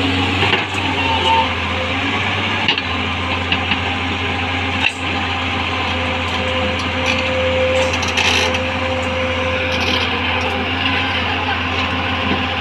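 L&T Komatsu PC200 hydraulic excavator's diesel engine running steadily under load while the machine swings and digs into soil. There are a couple of short knocks, and a thin whine holds for a few seconds about halfway through.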